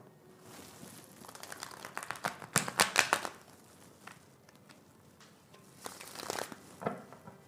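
Tarot cards being shuffled and handled: rustling full of quick flicks, busiest and loudest about two and a half to three seconds in, with a shorter rustle about six seconds in.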